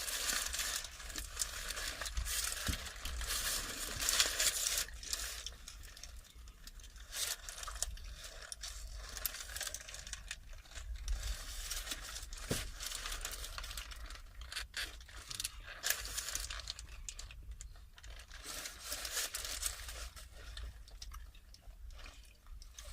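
Close-miked eating of a lamb wrap: the wrapper crinkling and tearing, with chewing. It is busiest in the first few seconds and again near the end, quieter in between.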